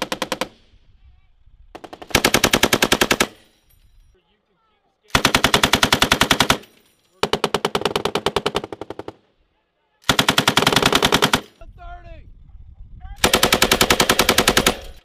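Machine gun firing rapid automatic bursts, each about one to two seconds long, with short pauses between: the tail of one burst, then five more.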